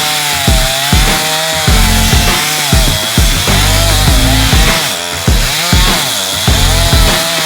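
Chainsaw running as it cuts through wood, its engine pitch wavering up and down under load. Background music with a heavy, steady beat plays over it.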